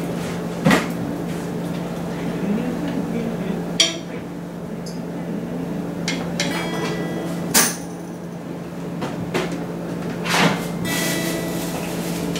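Scattered knocks, taps and clicks from a band's instruments and gear being handled between tunes, over a steady low electrical hum.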